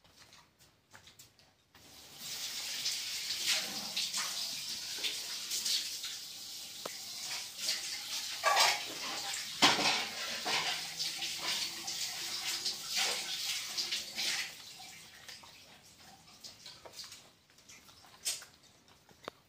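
Water running or splashing: a steady hiss that starts about two seconds in and fades out after about twelve seconds.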